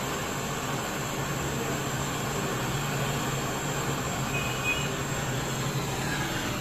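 Gas brazing torch flame hissing steadily as it brazes a copper refrigerant line onto the stub of a new Voltas deep-freezer compressor; the hiss cuts off near the end as the torch is taken away.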